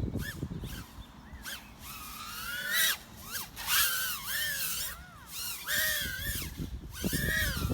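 FPV quadcopter's electric motors whining, their pitch swooping up and down again and again as the throttle is punched and cut through tricks, over a low rumble of wind on the onboard microphone.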